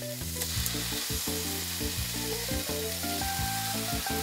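Yellowtail fillets sizzling steadily in hot oil in a frying pan while they are turned over with chopsticks, over soft background music.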